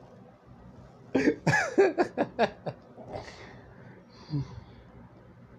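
A person's voice in a quick run of short, breathy bursts with rising and falling pitch, lasting about a second and a half from about a second in. Near the end comes one short, low vocal sound.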